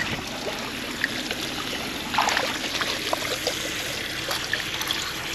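Water trickling and splashing from the root-cutter nozzle of a sewer jetter hose onto wet, rocky ground, with a brief scrape of handling about two seconds in and a few small ticks.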